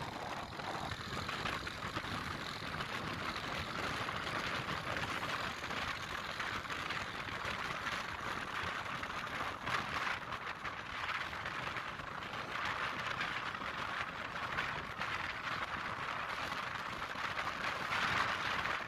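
Steady rushing wind and road noise heard from a moving vehicle riding along a paved road, with no distinct engine note.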